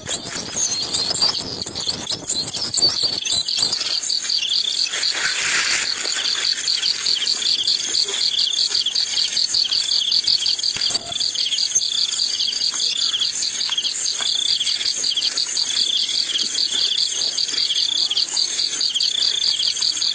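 Crickets chirring: a fast, even, high-pitched pulsing, with a second, lower chirp repeating about once a second. It sets in about four seconds in, after a few seconds of scuffling and rustling noise.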